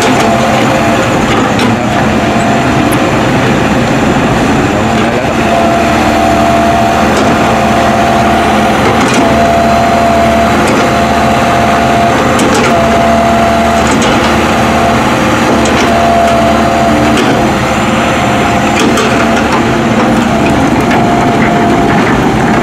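Crawler excavator's diesel engine and hydraulics working steadily as it grades the road, with a whine that comes and goes and a few short clanks.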